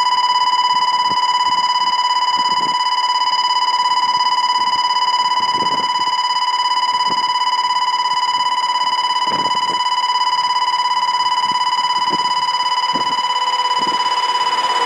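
Electronic railway warning alarm sounding one steady high-pitched tone without a break, with a slight fast pulse, as an express train approaches.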